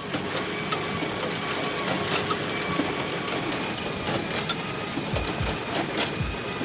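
Large square baler's pickup and packer running as straw is fed in: a steady mechanical noise with scattered clicks, and low thumps from about five seconds in.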